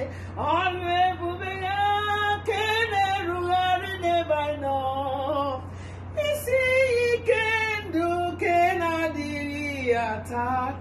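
A woman singing an Igbo praise song unaccompanied by any audible instrument, in long held, sliding notes, with a short pause for breath a little past halfway.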